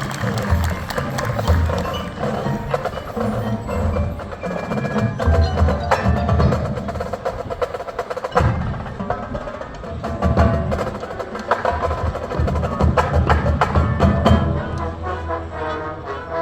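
High school marching band playing a percussion-heavy passage: many sharp drum strikes and repeated low bass drum hits, with mallet percussion ringing over them.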